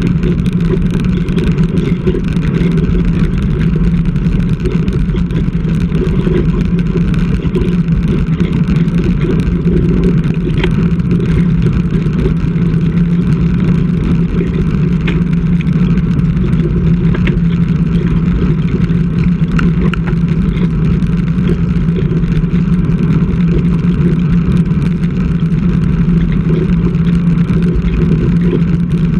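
Steady rush and rumble of wind on a bike-mounted GoPro's microphone at riding speed on a road bike, mixed with tyre noise on the tarmac.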